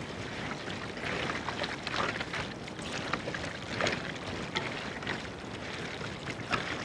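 Hands squishing and turning raw chicken pieces in a wet yogurt-and-spice marinade in a large metal pot: irregular soft wet squelches and small clicks.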